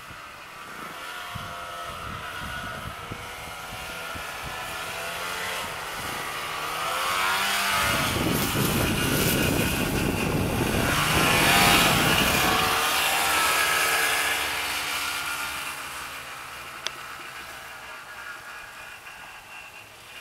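Snowmobile engine running as the machine approaches, passes close by in the middle and pulls away, getting louder and then fading, its pitch dropping as it goes past. A single sharp click near the end.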